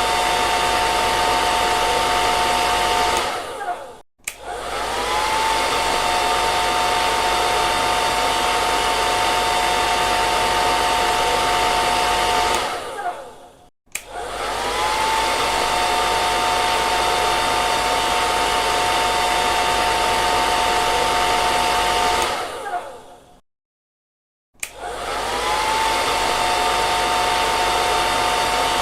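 Hair dryer blowing with a steady rush and a motor whine. Three times it is switched off, winding down over about a second to silence, then switched back on, the whine rising as the motor spins up again.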